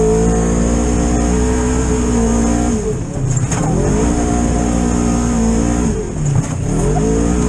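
Polaris RZR XP 1000 side-by-side's twin-cylinder engine running at high revs, heard from the cab. Twice, about three and six seconds in, the revs drop briefly and climb back.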